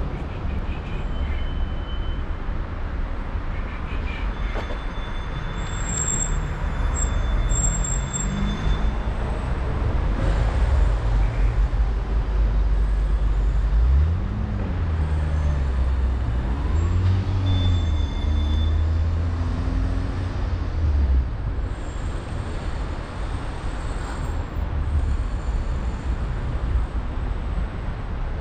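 City street traffic: a steady low rumble of passing vehicles. Around the middle, an engine rises and falls in pitch several times.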